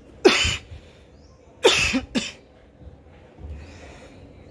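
Three short, loud coughs: one, then two close together about a second and a half later.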